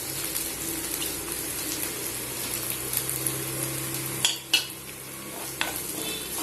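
Sliced onions and crushed garlic frying in oil in a pan, a steady sizzle, with a few clinks of a spatula against the pan about four seconds in.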